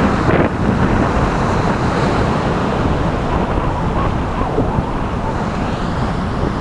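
Wind blowing across the microphone as a steady, low rushing noise, with surf washing on the beach.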